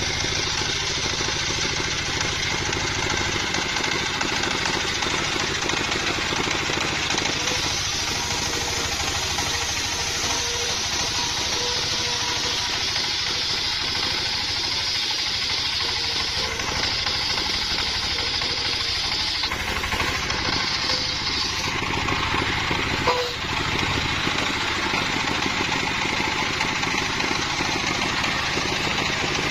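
Engine-driven circular saw bench running steadily while a sengon (albasia) beam is fed through the blade: a constant engine hum under the noisy hiss of the blade cutting the wood. One sharp knock about three-quarters of the way through.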